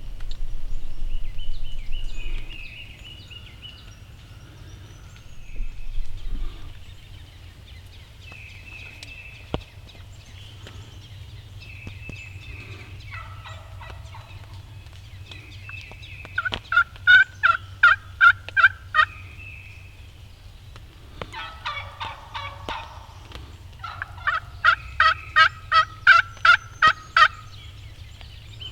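Wild turkey calling: a run of about eight loud, evenly spaced yelps, then a rattling gobble lasting a second or two, then a second run of about ten yelps. Fainter short chirps come earlier.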